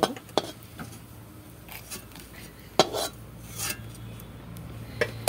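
Metal spatula scraping and knocking against an aluminium kadai as fried dried red chillies are lifted out, a few scattered clinks over a faint low hum.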